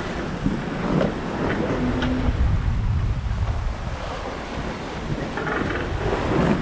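Wind buffeting the microphone over the rush and splash of short, steep waves around a sailboat rolling heavily in rough seas.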